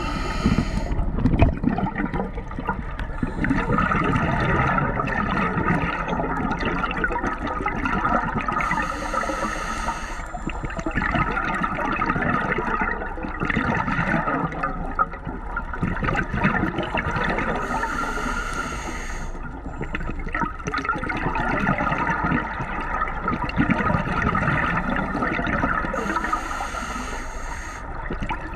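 Underwater recording: a steady rush of water noise with gurgling, broken by a short hiss about every nine seconds, four in all.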